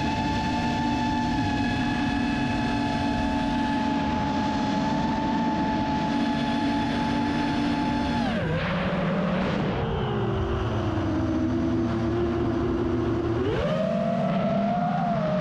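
An engine running steadily. About eight seconds in its pitch drops as it slows, and near the end it picks up speed again.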